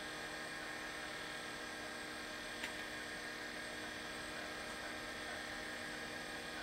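Steady hum of the bench computer with its Seagate ST-225 MFM hard drive spinning and working, several fixed tones held throughout, with a single faint click about two and a half seconds in.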